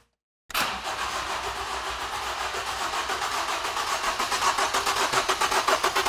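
2011 Ford Escape's 2.5-litre four-cylinder engine cranking on the starter motor, turning over with a quick, even pulse, starting about half a second in. It is being cranked for a compression test on cylinder one, the misfiring cylinder, which reads low at about 90 psi.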